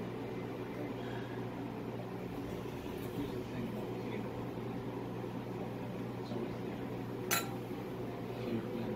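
Steady low hum of a kitchen appliance motor, with one sharp clink about seven seconds in from a spoon knocking against the glass mixing bowl.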